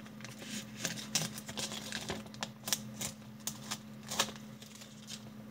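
Protective plastic film being peeled by hand off an engraved acrylic disc, crackling and crinkling in irregular quick clicks and rustles. A faint steady low hum runs underneath.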